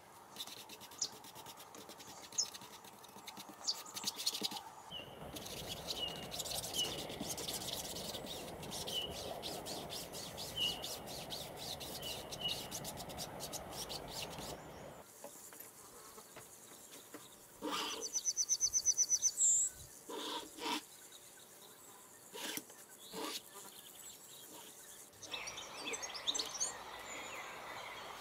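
A painting tool scraping and rubbing across a canvas coated in wet black acrylic: a steady scratchy sound for about ten seconds, then a few separate strokes. Small birds chirp now and then, with a quick trill of ticks about two-thirds of the way through.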